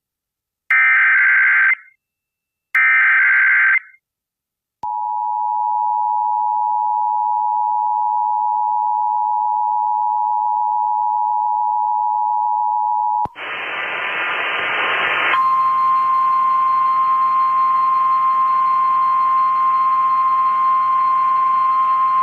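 Emergency alert tones: two short warbling SAME data bursts, then about eight seconds of the steady two-tone EAS attention signal. About thirteen seconds in comes a burst of radio static, followed by the steady NOAA Weather Radio warning-alarm tone heard over a radio receiver with hiss.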